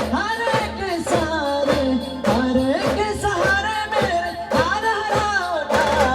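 Live Indian brass band music: an ornamented, wavering melody carried over a steady drum beat.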